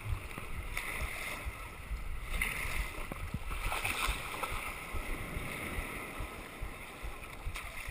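Sea water splashing and sloshing around a plastic sit-on-top kayak paddled out through breaking surf, with several louder splashes of paddle strokes and waves against the hull, about a second, two and a half and four seconds in.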